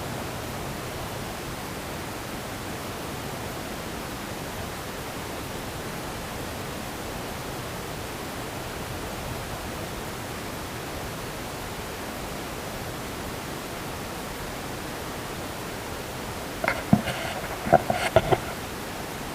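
Steady, even noise hiss, with a short cluster of sharp knocks or clicks near the end.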